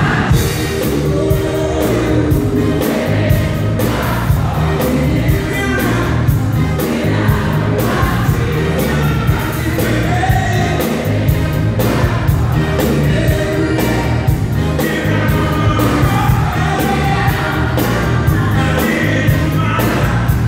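A live band plays a song with a steady beat while a man sings lead over it, with other voices singing along.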